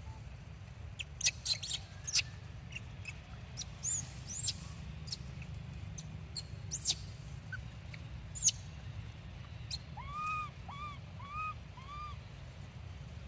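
Baby monkey giving many short, high-pitched squeaks in irregular clusters, then four short rising-and-falling calls near the end.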